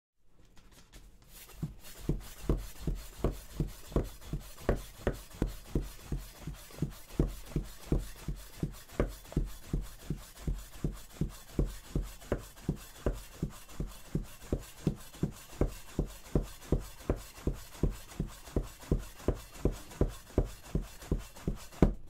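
Soba-kiri knife chopping folded hand-made buckwheat soba dough on a wooden cutting board: an even tonton of knife strokes, about two and a half a second, starting about two seconds in.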